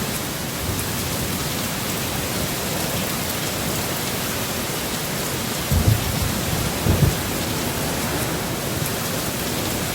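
Heavy rain pouring steadily in a storm, with two short, low thumps about six and seven seconds in.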